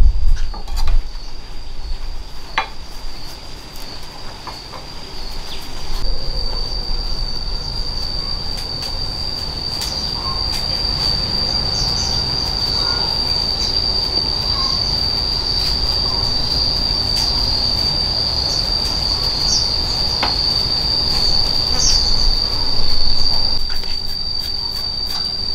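A steady, high-pitched insect chorus that holds one tone, with a few short higher chirps over it in the middle. Low rumbling and a few clicks and knocks sit beneath it.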